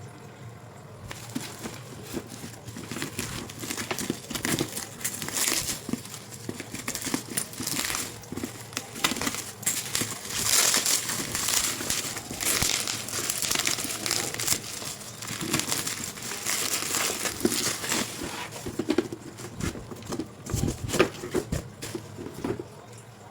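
Packaging being handled during unboxing: crinkling and rustling with many small clicks and knocks, starting about a second in and dying down near the end.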